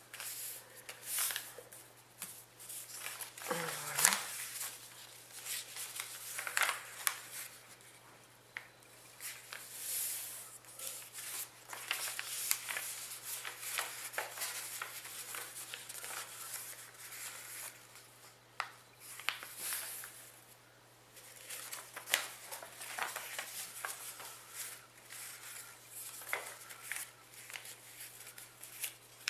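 Sheet of origami paper rustling and crinkling as it is folded and its creases pressed flat by hand, with short scrapes and taps throughout and a louder knock about four seconds in. A faint steady hum underneath.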